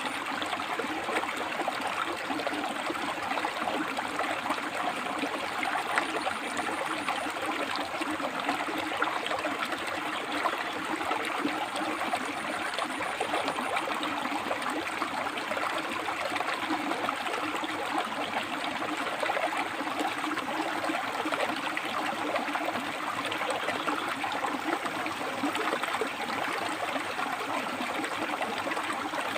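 River water flowing over and between rocks: a steady, dense rush and babble of running water with no change.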